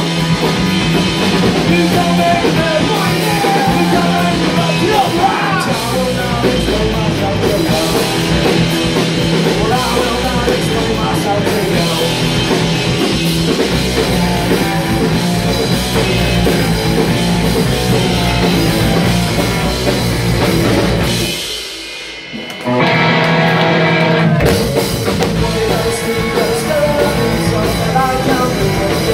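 Live rock band playing loud and fast: distorted electric guitars, bass and a drum kit, with a male lead vocal. About 21 seconds in the band drops back to almost nothing for a second or so, then crashes back in together.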